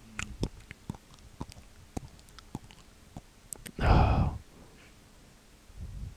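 A person chewing chewy Mentos mints: scattered soft wet mouth clicks and smacks, with a short breathy noise about four seconds in.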